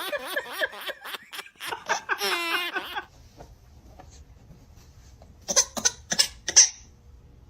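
Baby laughing in a rapid run of giggles that ends in a drawn-out squeal. After a short pause, a few more short giggles come near the end.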